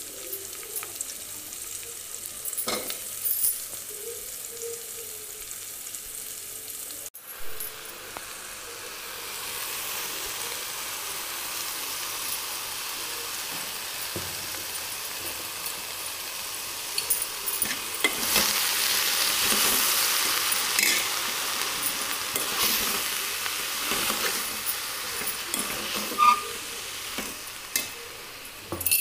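Chopped potato, ridge gourd and brinjal pieces sizzling in hot oil with fried onions in an aluminium pot, stirred with a steel spatula that scrapes and clicks against the pot. The sizzling swells from about nine seconds in.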